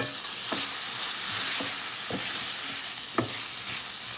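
Frozen mixed vegetables sizzling in hot oil in a stainless steel pan, with a steady hiss and a wooden spoon scraping and knocking against the pan in repeated stirring strokes.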